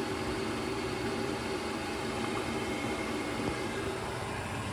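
Worcester Greenstar 28 Junior combi boiler running at full rate on hot water just after being refilled, with air still clearing from the system: a steady hum over an even hiss.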